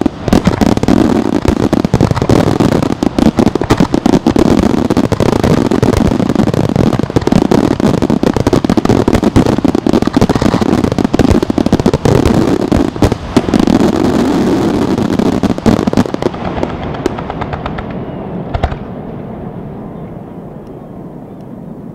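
Aerial fireworks shells bursting in a dense, continuous barrage of rapid bangs and crackle. The barrage thins out about sixteen seconds in, with one last bang a couple of seconds later, and then a fading rumble.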